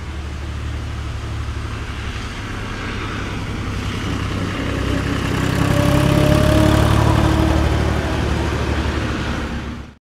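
A heavy-vehicle engine sound effect running with a steady low hum. It grows louder toward the middle, eases off, then cuts off abruptly at the end.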